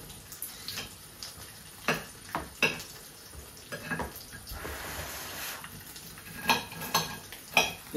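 Scattered clinks and taps of cutlery and dishes over a soft, steady hiss of chicken frying in a pan.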